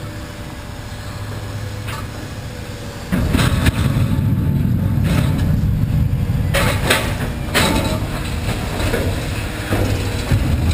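Diesel engine of a scrap-yard material handler running steadily. About three seconds in, a grapple load of scrap metal drops into a steel trailer with a loud rumbling crash, and clanks and bangs of metal on metal go on to the end.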